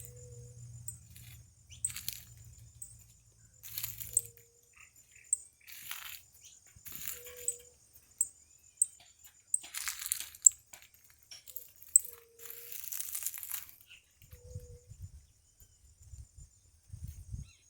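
A canary moving about: irregular short rustles and crunches every second or two, with faint short high ticks between them.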